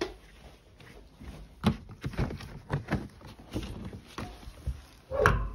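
Footsteps on a carpeted floor: a run of soft, irregular thuds about half a second apart, with one louder knock near the end.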